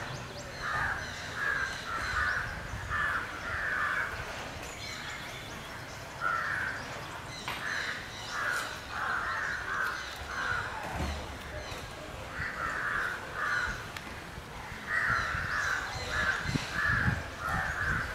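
Crows cawing over and over in runs of harsh calls, a few a second, with short pauses between the runs.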